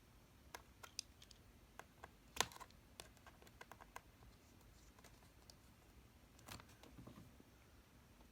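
Scattered faint clicks and taps of a small screwdriver and tiny screws being worked into a laptop's display panel, the sharpest one about two and a half seconds in.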